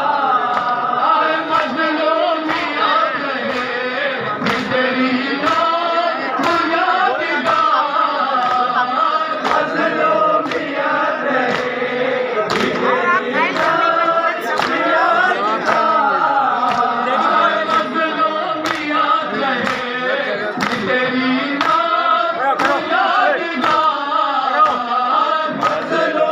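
A large group of men chanting a mourning lament (nauha) in unison, with a steady beat of sharp bare-hand slaps on bare chests in matam.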